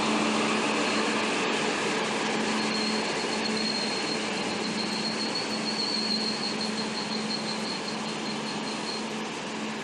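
Hunter Railcar diesel train running slowly into a platform: a steady engine hum and rumble with a thin, high squeal from about two and a half seconds in until near the end.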